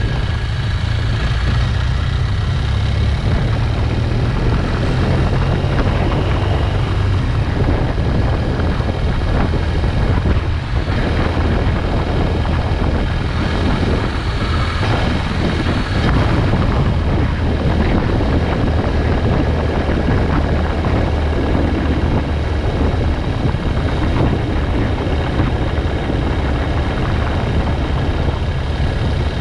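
Motorcycle riding at a steady road speed: its engine running under a heavy, steady rush of wind noise on the microphone.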